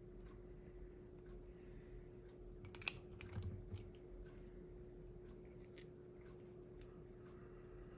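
Faint clicks and taps of small plastic and metal HO slot car chassis parts and tools being handled during reassembly, with a short cluster of knocks about three and a half seconds in and a sharp click near six seconds, over a faint steady hum.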